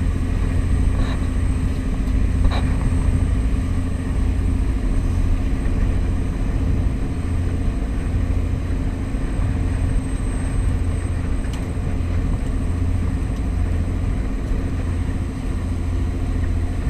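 A fishing boat's engine running with a steady low drone and rumble.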